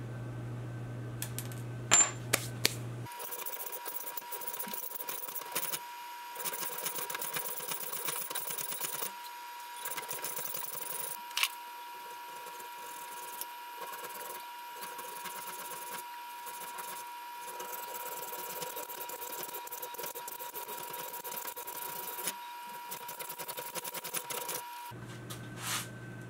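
Hand hacksaw cutting a steel bar clamped in a bench vise: rhythmic rasping strokes in several spells with short pauses, starting about three seconds in and stopping shortly before the end. A few sharp clicks come about two seconds in, before the sawing.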